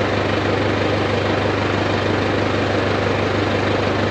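Feed mixer's engine idling steadily, an even low drone without breaks.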